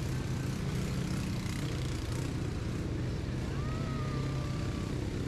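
Two-person ATV's engine running at a steady pitch while it is ridden.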